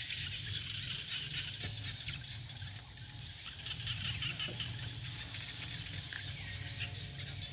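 Outdoor ambience among trees: a steady high-pitched chorus full of small rapid crackles, over a low rumble.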